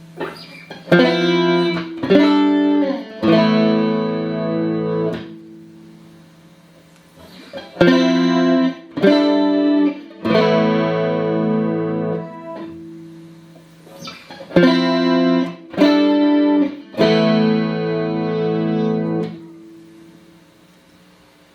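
Clean electric guitar played through a Boss CE-5 Chorus Ensemble pedal into two Roland JC-120 amps in stereo. The same short chord phrase is played three times: a few struck chords with a slide, left to ring out and die away.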